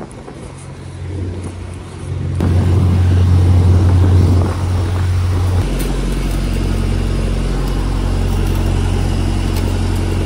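A diesel engine idling close by: a steady low hum that swells over the first couple of seconds, then drops to a deeper pitch about halfway through and runs on evenly.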